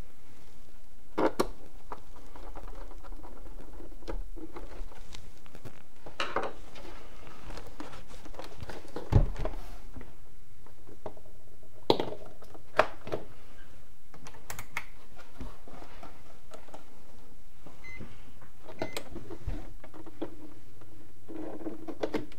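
Scattered knocks, clicks and thumps of a plastic UPS case being handled on a bench and its cords plugged in; the loudest is a thump about nine seconds in. Two faint short beeps come a few seconds before the end.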